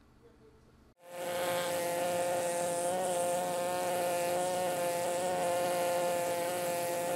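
Pneumatic air scribe buzzing steadily as its vibrating stylus chips rock matrix away from fossil bone. It starts about a second in.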